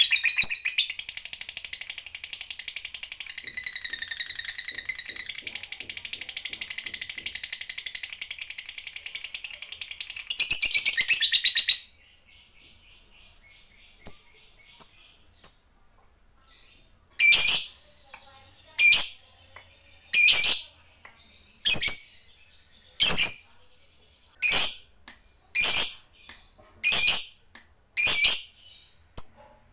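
Lovebird giving a long, unbroken, rapid chattering trill (ngekek panjang) that cuts off suddenly about twelve seconds in. After a brief lull it gives single sharp calls, about one every second and a half.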